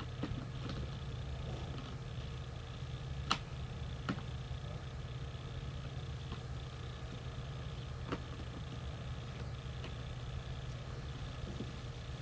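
Electric pressure washer running with a steady hum, broken by a few sharp clicks, three of them in the first eight seconds.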